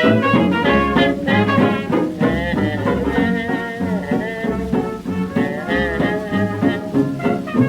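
1920s dance-band orchestra playing a fox trot on a 78 rpm record: brass and reeds carry the melody over a steady bouncing bass beat in an instrumental passage.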